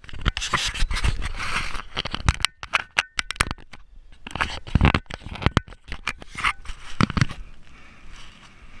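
Scraping, rubbing and knocking of hands against a camera's housing and microphone as it is handled and adjusted, in irregular clusters of clicks and scrapes.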